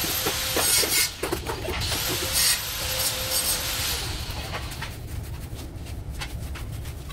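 Wet sand-cement mortar being scraped and spread with a trowel, a rough rubbing, rasping sound with scattered knocks. A thin steady high whine runs under it for the first half.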